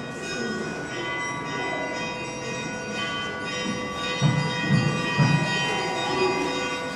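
Church bells ringing, their steady overlapping tones hanging and slowly fading, with a few fresh strikes about four to five seconds in.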